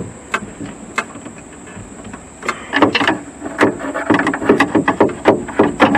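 Hand-fitting work on a truck door's power-window regulator: plastic and metal parts click, knock and scrape as a piece is worked into place. A few sharp clicks come first, then a busy run of clicks and knocks from about two and a half seconds in.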